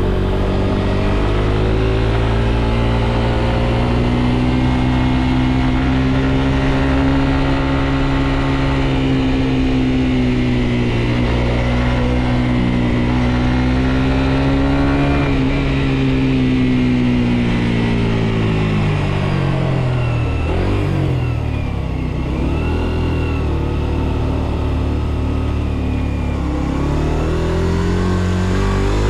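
Suzuki GSX-R125 single-cylinder engine under way: it holds steady revs for about fifteen seconds, the revs fall as the bike slows, stay low for a few seconds, and rise again near the end as it pulls away.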